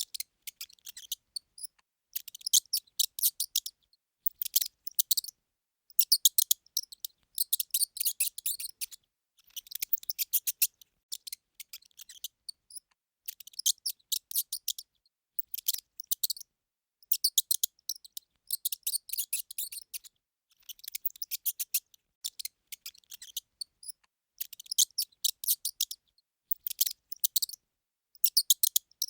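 Mouse squeaking: quick series of short, very high-pitched squeaks in clusters of one to two seconds, with short pauses between clusters.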